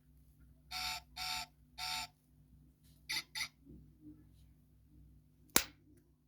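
Electronic beeping from a 1:32 diecast Toyota AE86 toy car's sound module: three beeps about half a second apart, then two quick shorter beeps. A sharp click follows near the end.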